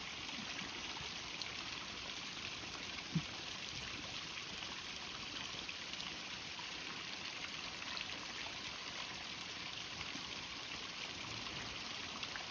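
Small stream of running water rushing and trickling steadily over a little waterfall, with one short low knock about three seconds in.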